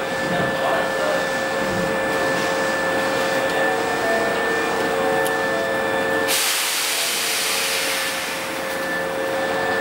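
A commuter train standing at a station platform, its machinery giving a steady hum with two held tones; about six seconds in, a loud hiss starts suddenly and keeps going.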